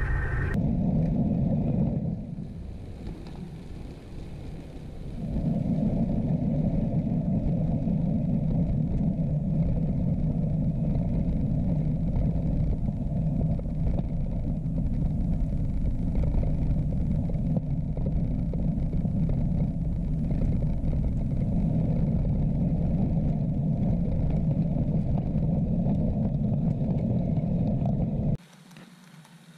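Model train rolling along the track, heard as a steady rumble of wheels on rail and running gear from a camera riding on the train. It softens for a few seconds between about two and five seconds in, then cuts off suddenly near the end.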